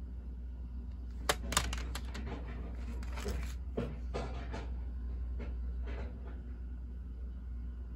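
Plastic CD jewel cases being handled and moved against a wooden table: two sharp clicks about a second and a half in, then lighter clacks and rubbing for several seconds. A steady low hum runs underneath.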